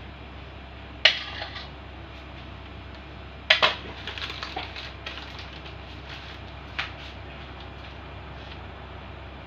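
A spatula knocking and clinking against a mixing bowl as frosting is scraped into a piping bag: one sharp knock about a second in, two louder ones around three and a half seconds, then a run of lighter clicks and one more knock near seven seconds.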